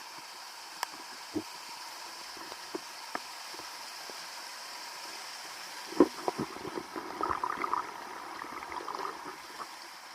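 Mountain stream water rushing steadily. From about six seconds in comes a busier stretch of irregular splashing, gurgling and sharp knocks.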